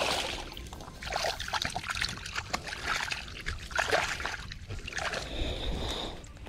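Hands splashing and sloshing in shallow pond water at the bank, a run of irregular splashes as the water is scooped and rinsed.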